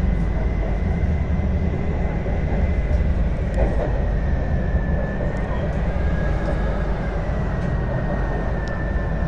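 Metro train running, heard from inside the carriage: a steady low rumble of wheels on track with a thin high whine that dips slightly in pitch about halfway through.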